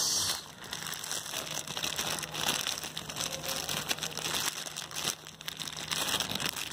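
Plastic wrapping crinkling and rustling as it is handled, in dense irregular crackles, louder at the start and again near the end.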